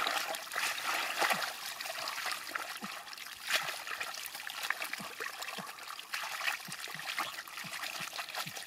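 Thick wet mud and water squelching, splashing and trickling as gloved hands scoop and work mud through a woven basket, sifting for small fish; an irregular run of short wet splats without a pause.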